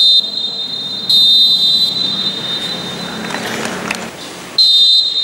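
Referee's whistle blown three times: a short blast at the start, a longer one about a second in, and another near the end.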